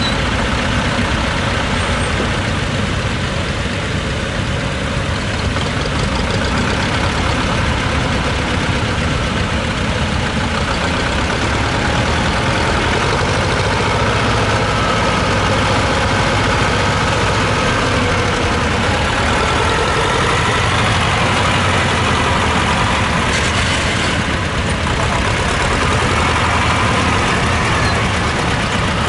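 Small Iseki compact tractor's engine running steadily as it pulls a plough through the field.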